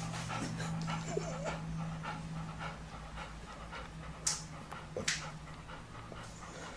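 Golden retriever panting with its tongue out, quick even breaths over a low steady hum, with two sharper noises a little after four and five seconds in.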